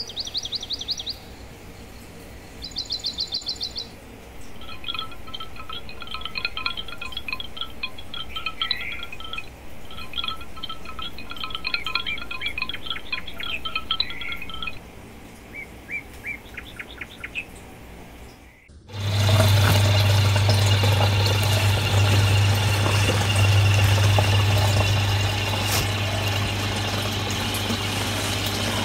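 Small birds chirping and trilling in short repeated phrases. About two-thirds of the way through this cuts suddenly to a much louder steady hum with water bubbling, from an aquarium's air pump and filter heard close up.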